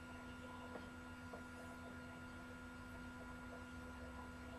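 Faint steady electrical hum: a low tone with a few higher steady whines over light hiss, with a couple of faint clicks about a second in.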